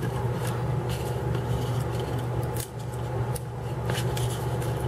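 Fingers peeling the thin papery skin off a baked jackfruit seed: faint, scattered crackles and scratches over a steady low hum.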